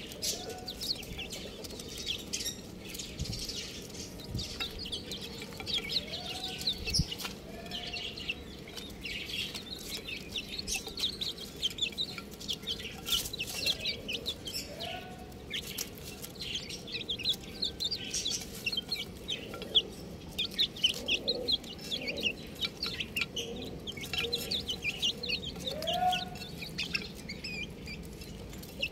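A crowd of baby chicks peeping constantly in short, high, rapid chirps. A few lower calls that rise in pitch sound now and then among them.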